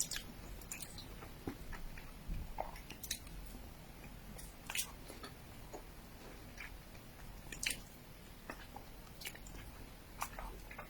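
Close-up chewing of mochi: soft, sticky mouth clicks and smacks at irregular intervals, roughly one every second or two.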